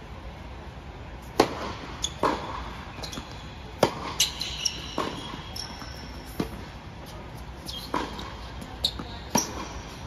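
Tennis rally on an indoor hard court: a string of sharp racquet strikes and ball bounces, about ten in all, with short high squeaks of shoes on the court after several of them.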